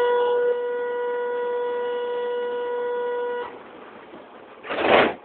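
A light-rail car's warning buzzer, one steady unwavering tone that sounds for about three and a half seconds and then cuts off, typical of the door-closing warning. About a second and a half later comes a short, loud burst of noise.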